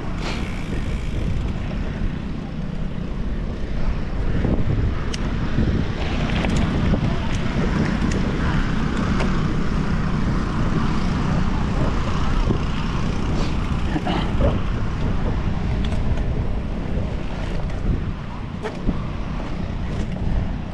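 Rumble of a cyclocross bike's tyres on a dirt course, with wind rushing over the microphone and scattered clicks and rattles from the bike over bumps.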